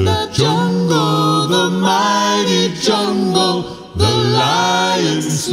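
Male a cappella quartet singing doo-wop in close harmony, holding long sustained chords, with short breaks between phrases.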